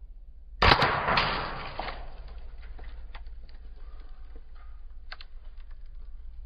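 An air rifle slug hits a fruit about half a second in with a sharp crack, and the fruit bursts apart. A second or so of noise follows as the pieces scatter, then a few small clicks of debris settling on the dry leaves.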